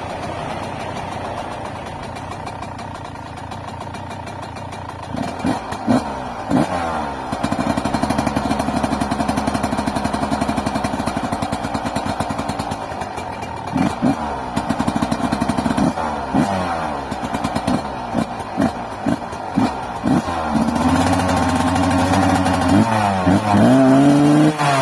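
2001 Yamaha YZ125 two-stroke single-cylinder engine warming up after a cold start: it idles steadily for the first few seconds, then is revved in a series of quick throttle blips, held at a higher steady speed for about five seconds, blipped again several times, and revved louder and higher near the end.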